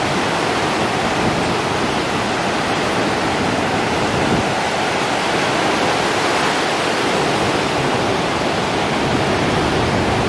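Heavy surf breaking and whitewater rushing toward shore, a loud, steady wash of noise with no let-up.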